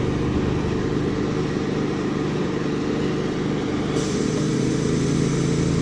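A steady mechanical drone holding an even pitch, like an engine or motor running constantly.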